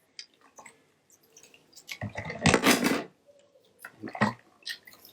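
Water sloshing and dripping as small plastic controller parts are swished and rinsed in a bucket, with light clicks of plastic knocking together. There is a larger splash about two seconds in and a shorter one about four seconds in.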